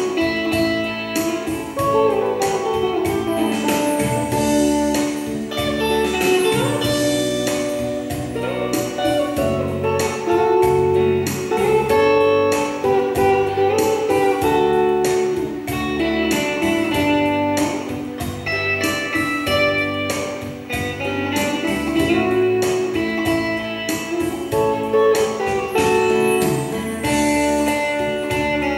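Electric guitar playing an instrumental melody of single notes with bends and slides, over a steady beat and bass accompaniment.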